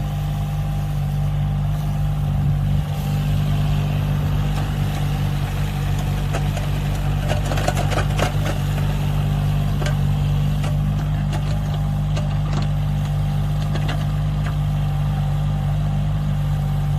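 Excavator's diesel engine running steadily during ditch digging, with a cluster of knocks and scrapes about halfway through.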